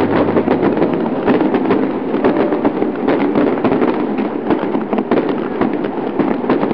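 Fireworks crackling: a dense, unbroken run of many small pops and crackles.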